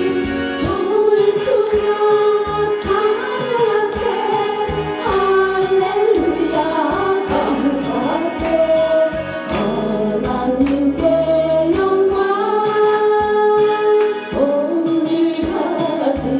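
A gospel song sung by voices, with female voices and a choir-like sound, over instrumental accompaniment with a steady beat.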